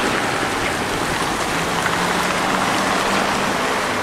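Steady wash of traffic noise on a wet road, with cars' tyres rolling through water-filled potholes and mud. A faint engine hum rises and then fades out again across the middle.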